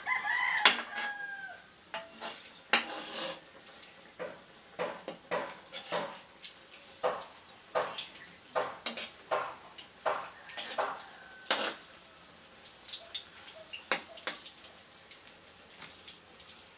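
Metal spatula scraping and knocking against a wok while stirring bananas frying in oil. The strokes come irregularly, roughly one every half second to a second, and thin out near the end.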